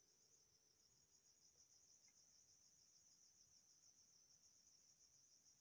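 Near silence, with only a faint, steady, high-pitched trill throughout.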